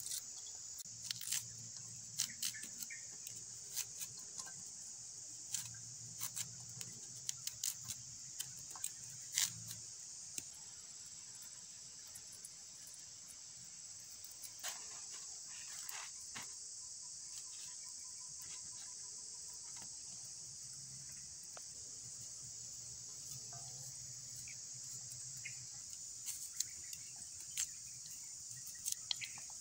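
Steady high-pitched chirring of forest insects, with sharp clicks of a knife cutting food over a metal wok, many in the first ten seconds and a few more near the end.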